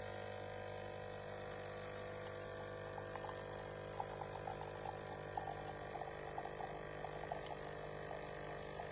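HiBREW H2A capsule coffee machine brewing: its 19-bar pump hums steadily. From about three seconds in, coffee trickles and splashes into the cup.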